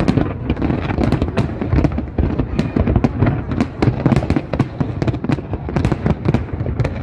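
Aerial fireworks display at its height: a rapid, unbroken barrage of bangs and crackling from many shells bursting at once.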